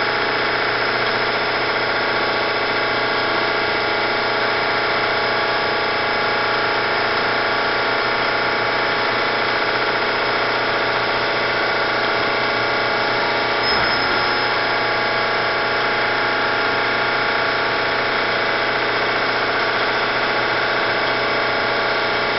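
Siber Hegner RB-1 CNC bed mill running steadily, its 3-horsepower variable-speed milling head giving an even mechanical drone made of many steady pitches. A short knock comes about fourteen seconds in.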